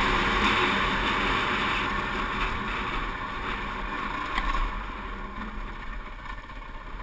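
Wind rushing over the camera microphone of a moving dirt bike, with the bike's engine running underneath; the rush grows steadily quieter as the bike slows down.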